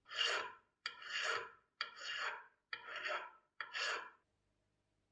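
Flat hand file rasping across a brass blowtorch cap clamped in a vise: five strokes about a second apart, each opening with a light click as the file bites.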